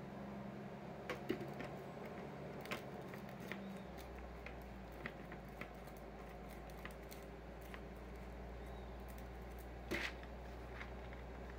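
Domestic cat eating dry kibble from a bowl: faint, irregular crunches and clicks, the loudest about ten seconds in, over a low steady hum.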